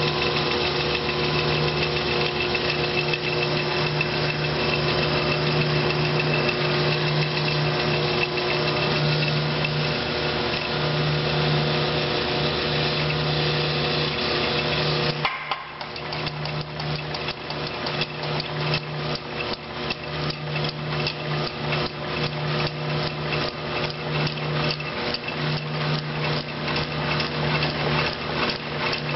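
Rebuilt old-style 25 lb Little Giant power hammer running: at first only the belt-driven flywheel and clutch pulley spin with a steady hum. About halfway the ram engages and starts cycling, giving a fast, even, regular knock of strokes. The hammer runs smooth and quiet.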